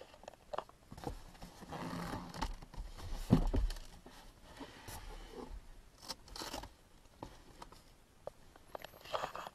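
Plastic interior trim of a car's rear shelf area being handled and fitted: rustling and scraping with scattered clicks, and one louder knock about three seconds in.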